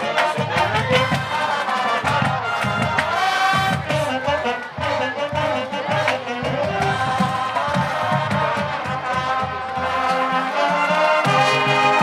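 High school marching band playing: saxophones, clarinets and brass holding notes over a steady beat from the marching percussion.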